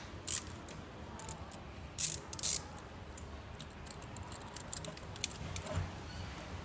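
Small metal parts and hand tools being handled during engine-bay disassembly: scattered light clicks, ticks and rattles, with a couple of short scuffs around two seconds in.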